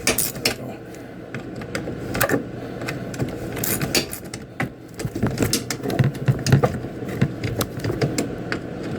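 Irregular metallic clicks, clinks and knocks of hand tools working a fastener on a side-by-side's rear rack.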